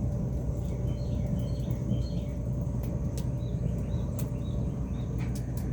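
Outdoor ambience: a steady low rumble with a faint steady hum, small birds chirping faintly several times, and a few scattered sharp ticks.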